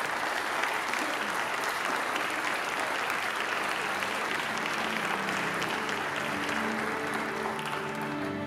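Audience applauding steadily. About halfway through, soft music with held notes fades in underneath the applause.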